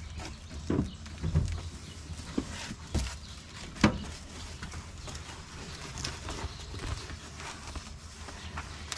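Irregular bumps, knocks and rustles as a stiff foam-underlayment sunshade is handled and pushed up against a van's windshield and dashboard, with the sharpest knock about four seconds in.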